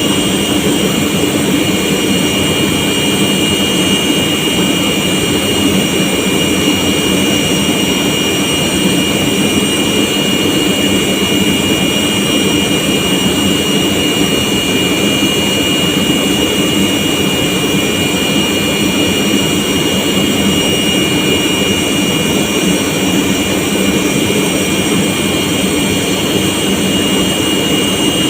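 Large industrial electric air compressor running steadily: a constant high whine over a dense low drone.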